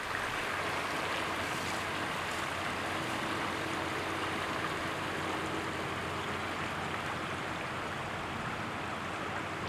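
Flood-swollen Connecticut River rushing past, a steady, even rush of water.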